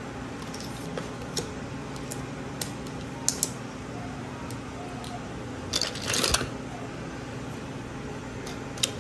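Small wooden puzzle pieces clicking lightly as they are set down on a table, a handful of separate clicks, with a short clatter of pieces being handled about six seconds in. A low steady hum runs underneath.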